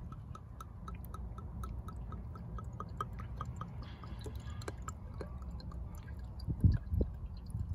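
Marvel Mystery Oil being poured from its bottle into an engine's oil filler neck, a steady run of soft glugs about three a second. A couple of dull knocks come near the end.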